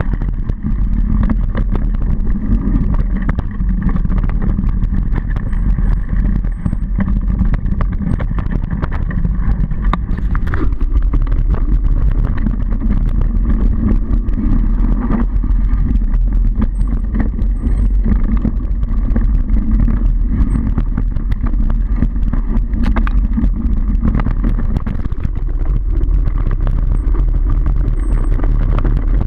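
Mountain bike ridden fast over a rough dirt singletrack, heard from a GoPro mounted on the bike: heavy wind rumble on the microphone with constant rattling and clicking from the bike and tyres over the bumps.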